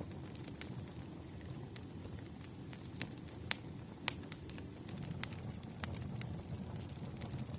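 Wood fire burning: a steady low rumble with scattered sharp crackles and pops, the loudest about three and a half and four seconds in.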